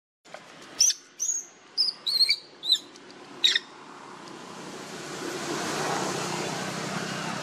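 A quick series of about six short, high-pitched chirping calls, each bending in pitch, followed by a steady rushing noise that slowly grows louder.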